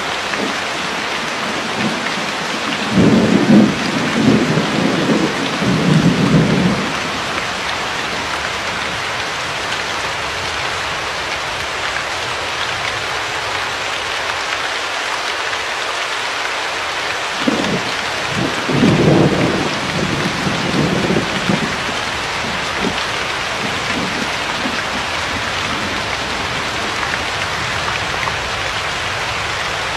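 Steady rain with two low rolls of thunder, the first about three seconds in and the second about seventeen seconds in, each lasting a few seconds.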